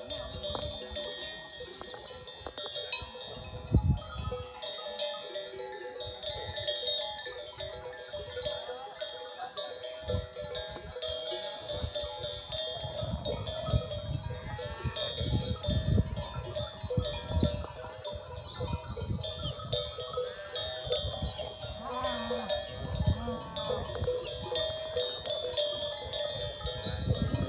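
Bells on grazing livestock ringing and clanking steadily, with an animal bleating now and then.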